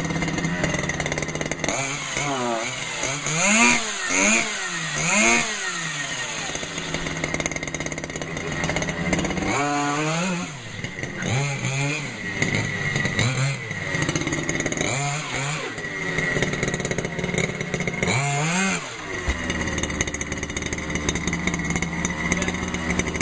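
Small petrol engine running and being revved repeatedly in short blips, the pitch rising and falling back to idle between each, with a busy run of revs early on and more spaced-out blips later.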